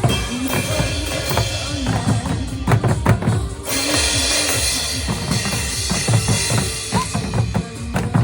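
Trot music with a steady drum-kit beat under sustained instrumental notes. A bright crash-like wash comes in about four seconds in.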